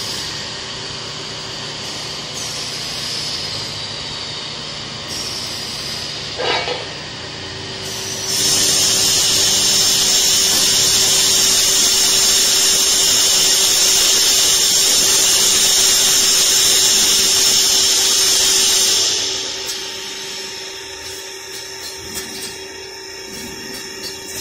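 Steel grating welding machine running: a steady machine hum with a steady tone. About a third of the way in, a loud high-pitched hiss starts and holds for about ten seconds, then drops back to a quieter hum with scattered clicks.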